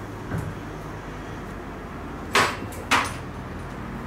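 Saw chain clicking against a chainsaw guide bar as it is worked by hand into the bar's groove: a faint tap near the start, then two sharp clicks about half a second apart a little past halfway.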